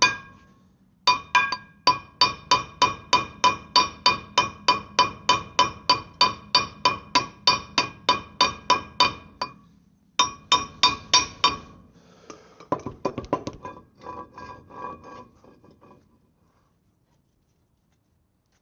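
Hammer blows on a stuck Land Rover Defender 90 wheel hub: quick, ringing metallic strikes, about four a second, pausing briefly about a second in and again around ten seconds in, then a run of lighter, rattling knocks before they stop.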